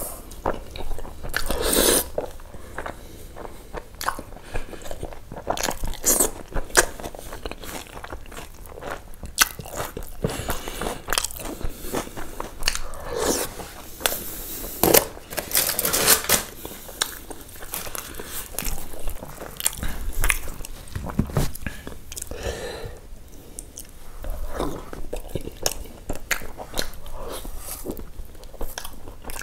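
Close-up eating sounds of a person biting into and chewing chicken by hand: wet mouth sounds and irregular sharp clicks, with a louder bite every few seconds.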